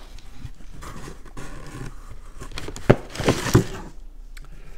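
Plastic-wrapped DVD and Blu-ray cases being handled and swapped: crinkling and rustling of the plastic, with a few sharp clacks of cases knocking together around three seconds in.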